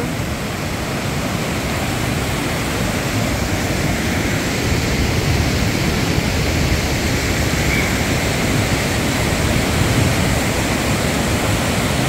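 Fast mountain river rushing through boulder rapids and small falls: a steady, full rush of whitewater.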